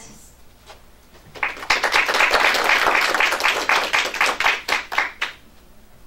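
Audience applauding. It starts about a second and a half in, lasts about four seconds, and thins out into a few last claps near the end.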